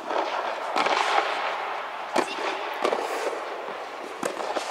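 Tennis rackets hitting the ball during a doubles rally: several sharp pops a second or so apart, echoing under an inflated air dome.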